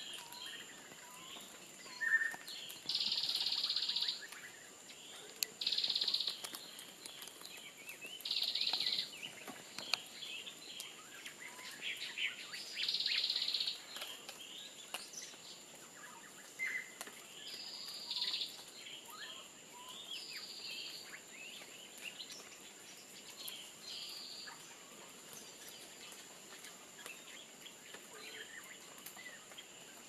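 Forest ambience with brief bird chirps and a series of harsh buzzy bursts, each about a second long and coming every few seconds, over a steady high-pitched whine. The bursts thin out in the last third.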